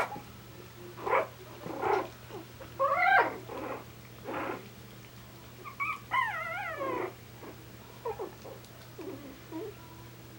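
Three-week-old Coton de Tulear puppies whining and yipping in short, wavering squeaky cries, one every second or so, the longest wavering whine about six seconds in.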